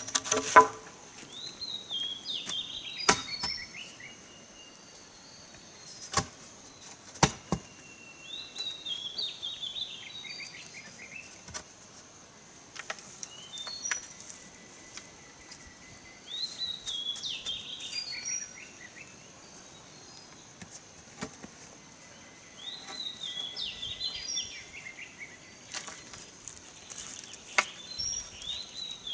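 A bird's chirping song phrase, running downward in pitch, repeats every six to eight seconds over a steady high insect drone. Occasional sharp knocks and taps come from bamboo poles being handled and set into the ground, the loudest just at the start.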